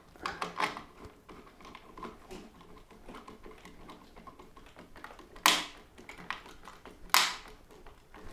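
Small clicks and taps of hands handling the plastic parts of a lawn mower handle, with two sharp, louder clicks about five and a half and seven seconds in.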